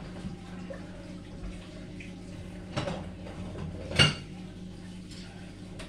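Dishes and utensils being handled, with two short clinks, the louder about four seconds in, over a steady low hum.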